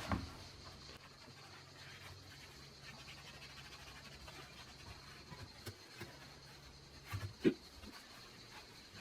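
Faint rubbing of a detergent-soaked mop scrubbing a washing machine's rubber door seal, over a low steady hum. A soft knock comes right at the start and a louder one about seven and a half seconds in.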